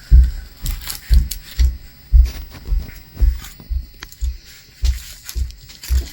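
Steady low thumping, about two thumps a second, with light crinkling and clicking of plastic packaging over it.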